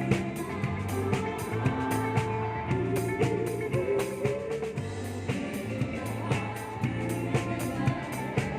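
Band music with a drum kit keeping a steady beat over bass and guitar.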